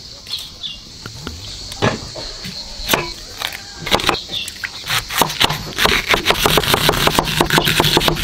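Kitchen knife cutting an onion on a wooden chopping board: a few scattered cuts at first, then rapid, even chopping from about five seconds in, several strokes a second.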